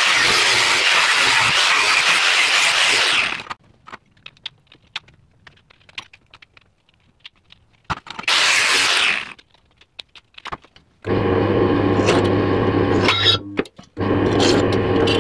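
Angle grinder cutting thin sheet metal in two loud passes, the first about three and a half seconds long and the second about a second, with light clicks and knocks of handling between them. About eleven seconds in, a bench drill press starts running with a steady motor hum while drilling a small metal plate; the hum drops out briefly near the end and starts again.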